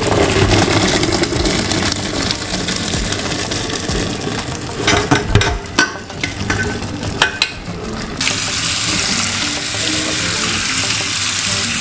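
Cooked red kidney beans and their hot cooking water poured from a metal pot into a stainless steel colander in a sink, the liquid splashing through and the pot and beans knocking and clinking against the colander. About eight seconds in, a tap is turned on and water runs steadily onto the beans in the colander.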